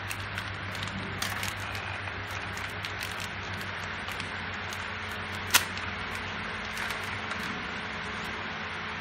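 Light clicks and taps of metal parts being handled as a front sprocket is fitted onto a motorcycle's countershaft, with one sharp click a little past halfway, over a steady low hum.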